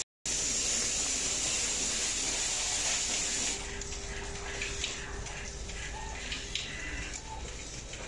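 Steady hissing noise, loudest for about the first three and a half seconds, then dropping to a fainter hiss with a few light clicks and taps.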